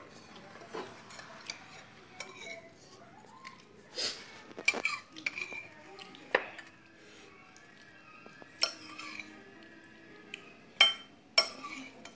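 A metal spoon clinking against ceramic dinner plates in a handful of sharp, irregular clinks, the loudest about five seconds in and near the end.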